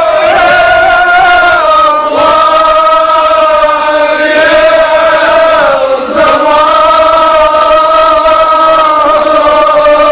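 Male devotional chanting in long held notes that slide slowly in pitch, with short breaks about two and six seconds in.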